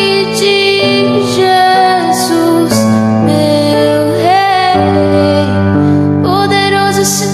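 Slow worship music: a woman singing a long, held, gliding melody over sustained keyboard chords that change every second or so.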